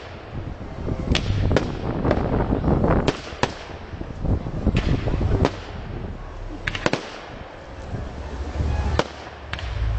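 Aerial fireworks going off: about a dozen sharp bangs and cracks at irregular intervals, over a low rumble.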